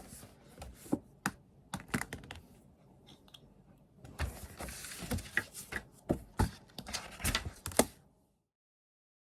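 Irregular light clicks and taps with some rustling, the small handling sounds of desk work, stopping abruptly about eight seconds in.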